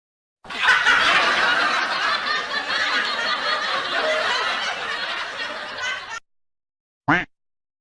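Laugh-track sound effect: a crowd of people laughing together for about six seconds, cutting off abruptly. About a second later comes one brief sliding tone.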